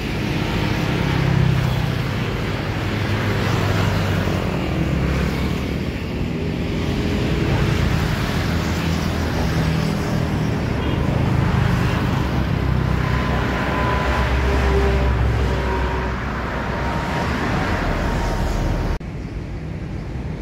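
Steady road traffic passing over a bridge, its rumble swelling and fading as vehicles go by. It cuts off abruptly near the end to a quieter background.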